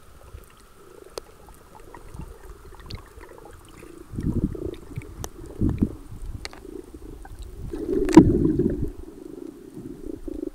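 Muffled underwater rumbling and water movement against an action camera's waterproof housing, in uneven surges, with scattered faint clicks. A sharp knock comes a little past the middle of the surges.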